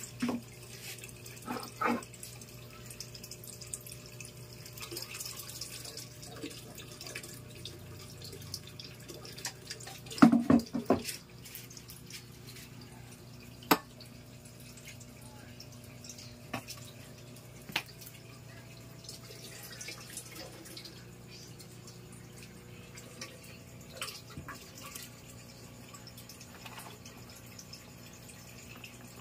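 Scattered light clicks and knocks of glass pieces being handled and set against the top edge of a glass aquarium, with a louder cluster of knocks about ten seconds in. A steady low hum runs underneath.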